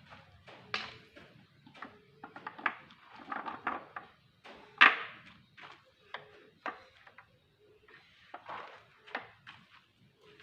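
Irregular knocks, clicks and clatter of hard objects being handled, with one sharp knock about five seconds in the loudest.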